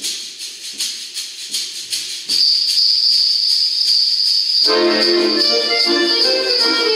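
Small jingle bells shaken in a rhythm of about four shakes a second, turning to a steady jingling a little past two seconds in; a button accordion comes in with chords and melody about four and a half seconds in.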